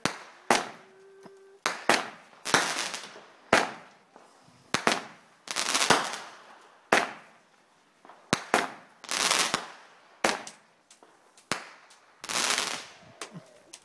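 Aerial fireworks firing and bursting overhead in quick succession: sharp bangs every second or so, each followed by a crackling hiss that dies away within a second.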